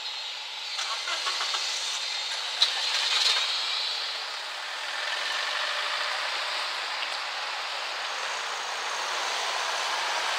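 Level-crossing barrier booms lifting, with a series of clicks and one sharp clunk in the first few seconds. Then comes the steady noise of cars moving off and driving over the crossing, growing louder near the end.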